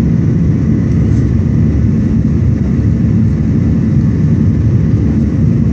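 Cabin noise inside a Boeing 737-900 climbing out after takeoff: the steady, deep noise of its CFM56-7B jet engines and the airflow, with a faint steady hum tone over it.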